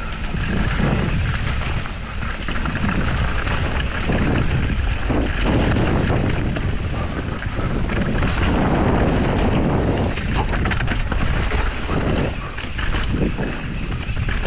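Mountain bike descending a dirt and rock singletrack: wind buffeting the helmet camera's microphone, with tyres rolling over the dirt and the bike rattling over bumps.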